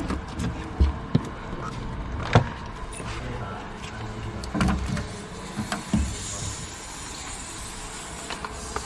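Tyre-repair work in a garage: scattered clicks, knocks and a few louder thumps over a low steady hum.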